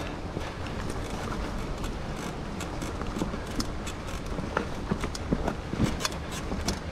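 Scott Genius 950 mountain bike riding over a dirt trail: tyres running on dirt and loose stones, with scattered clicks and rattles from the chain and frame, more of them in the second half, over a steady low rumble.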